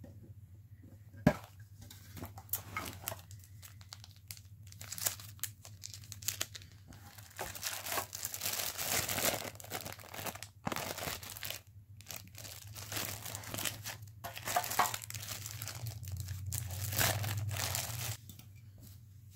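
Zip-top plastic bag crinkling and rustling in on-and-off bursts as a stack of trading cards is handled inside it, with a single sharp click about a second in. A faint low hum runs underneath.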